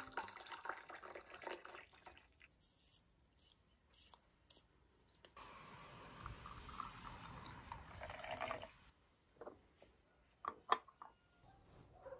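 Hot water pouring into a white porcelain tea pitcher, then a pause with a few light clicks and a second stretch of pouring from about five to nine seconds in. This is followed by a few sharp clinks of porcelain teaware near the end.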